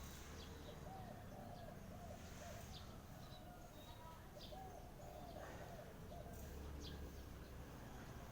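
Birds calling: clusters of soft, low, repeated warbling notes with a few short high chirps, faint over a steady low rumble.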